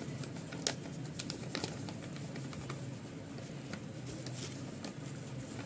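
Faint crinkling and small ticks of a foil-lined packet being handled as dry dhokla flour mix is poured from it into a steel bowl, over a low steady hum. The sharpest tick comes just under a second in.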